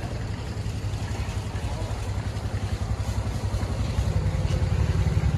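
A motorcycle engine running with a low hum that grows steadily louder toward the end as it comes closer.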